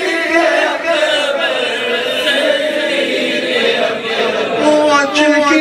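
A crowd of men chanting together, many voices overlapping on sustained pitches.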